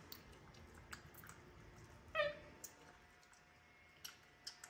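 Faint small clicks and taps as a capuchin monkey picks food pieces from a hand, with one short squeak that falls sharply in pitch about two seconds in.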